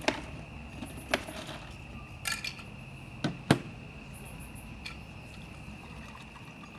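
Campfire crackling, with half a dozen sharp pops spread out, the loudest about three and a half seconds in.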